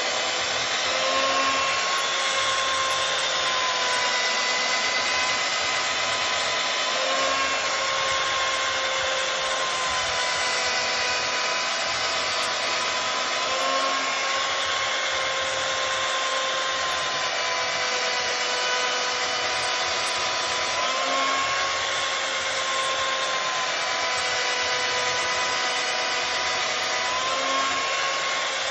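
Mafell LS103 chain mortiser running steadily as its chain cuts a mortise in an oak beam; the motor note rises for a second or two about every six or seven seconds and then settles lower again.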